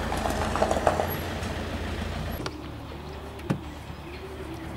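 A Peugeot 307 estate car driving slowly over gravel: a low engine rumble with the stones crackling under the tyres. About halfway through this sound drops away abruptly, leaving a quieter background with a single sharp click.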